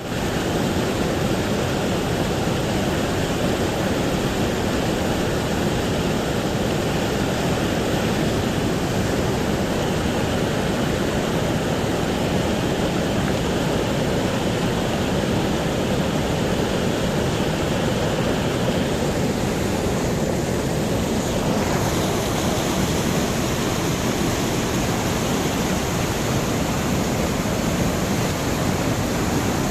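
Loud, steady rush of fast-flowing water, with a slight change in its hiss about two-thirds of the way through.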